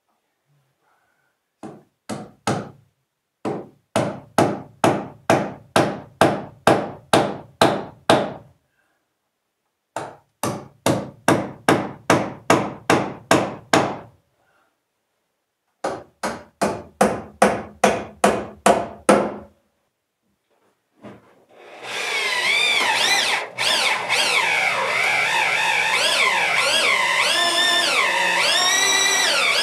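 Hammer blows on wood, about two to three a second, in four runs separated by short pauses: nailing electrical boxes to the framing. Then a power drill bores through a wooden wall stud, its motor whine rising and falling in pitch as it works.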